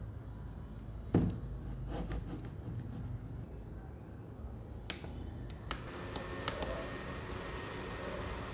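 Handling thumps and a few sharp button clicks, then from about halfway through a small fan motor starts running with a steady airy whir and a thin high whine: the mini humidifier fan switched on.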